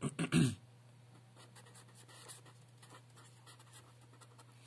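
Marker pen writing on paper: faint, irregular short scratching strokes, over a steady low hum.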